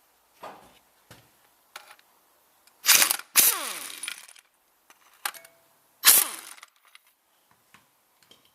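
Metal tools and parts clanking during gearbox removal work. A few light knocks, then two loud metallic clanks about three and six seconds in; the first is followed by about a second of ringing scrape that falls in pitch.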